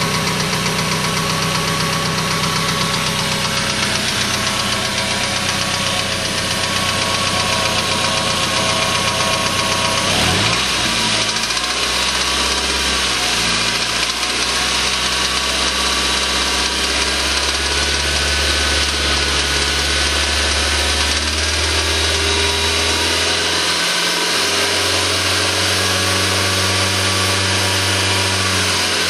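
Suzuki Aerio four-cylinder engine running with a rod knock from a spun connecting-rod bearing. The engine's pitch shifts about ten seconds in.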